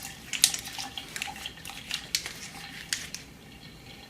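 Shoelaces being stirred in a cup of hot soapy water: small wet splashes and clicks, busier for the first three seconds, then quieter.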